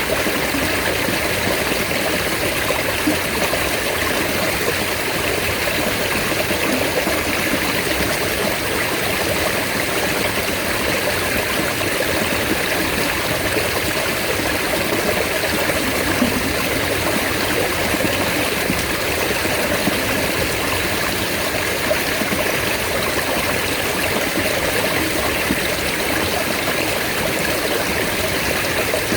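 Mountain stream water rushing and splashing steadily, an even continuous wash of water noise.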